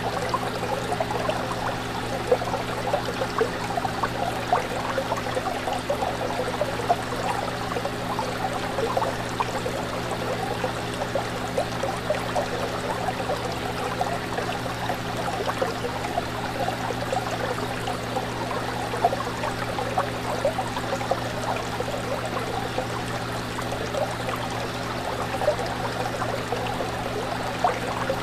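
Aquarium water bubbling and trickling steadily in a fine, even patter, over a steady low hum.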